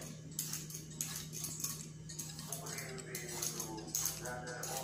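A hand vegetable peeler scraping the skin off an angled luffa (patola) in short, repeated strokes.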